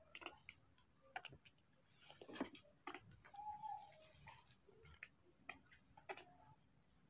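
Mostly quiet, with faint scattered ticks and scuffs and a short, faint squeak from a baby monkey about three and a half seconds in.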